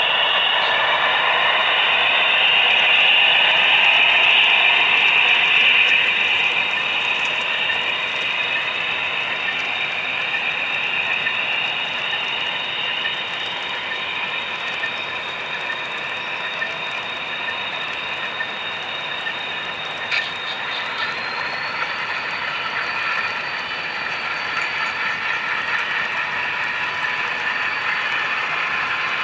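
HO scale model freight trains running past each other: the clicking rattle of small metal wheels over the track with the whine of the locomotive motors. It is loudest in the first few seconds as the nearer train goes by, then steadies.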